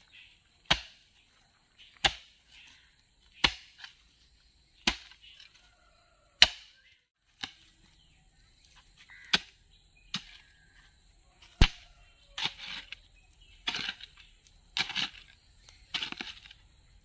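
Hoe blade chopping into red earth: sharp strikes about every one and a half seconds, then in the last few seconds longer, scraping strokes as loosened soil is pulled out of the pit.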